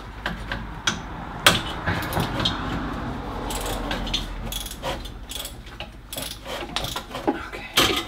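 Ratchet wrench clicking in quick runs, with metal taps and knocks, as nuts and bolts are loosened on a gas golf cart's starter generator.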